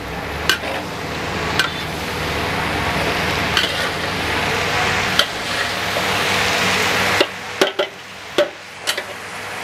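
Long beans stir-frying in a large wok: a steady sizzle, with a metal spatula clanking and scraping against the wok now and then as the beans are tossed to mix in the seasoning. The sizzle drops away about seven seconds in, leaving a few more clanks.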